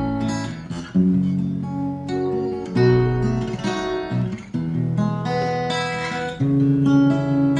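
Acoustic guitar strummed as a slow song accompaniment, its chords changing every second or two.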